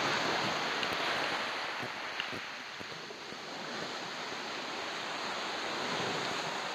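Small waves washing onto a sandy shore, with wind on the microphone. The wash is louder at first, eases near the middle and swells again later.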